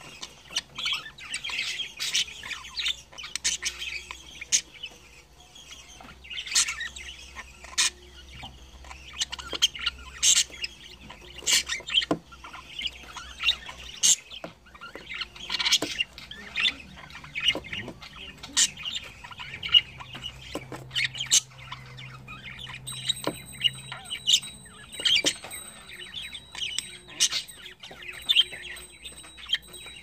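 Budgerigars chattering and chirping, with frequent sharp clicks of beaks pecking at seed in a plastic dish.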